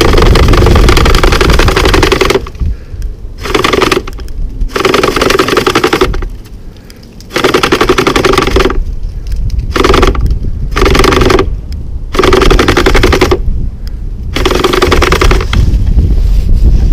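iRobot Looj 330 gutter-cleaning robot's drive and auger motors running in short spells in a clogged gutter. The motor noise cuts out and restarts every second or two, about eight times.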